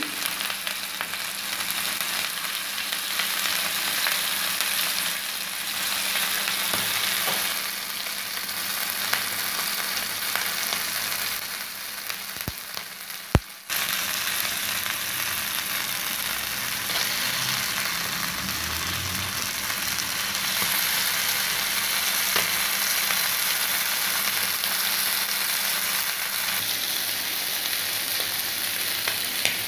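Sole fillets and curry leaves shallow-frying in oil in a non-stick pan, a steady sizzle. About 13 seconds in, the sizzle dips briefly and there is a single sharp click.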